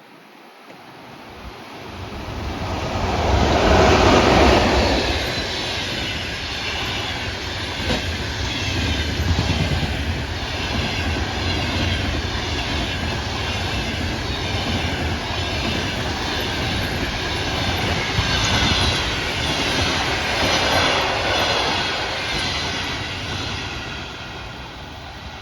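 EP1M AC passenger electric locomotive passing at speed, followed by the carriages of a passenger train running past with a rhythmic clickety-clack of wheels over rail joints. The sound is loudest as the locomotive goes by a few seconds in and fades near the end.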